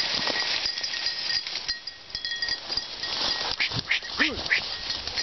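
A Catahoula cur track dog gives one short bark about four seconds in, among a few light crackles, while trailing a wounded deer that is about to jump from cover.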